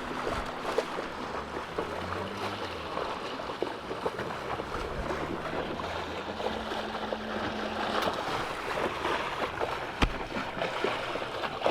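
A small boat's outboard motor running at low speed as it comes alongside, over wind and water noise, with one sharp knock about ten seconds in.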